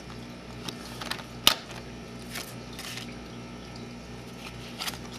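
A few light taps and clicks from a Square One Star Prism puzzle and playing cards being handled and set down on a table, the sharpest about a second and a half in.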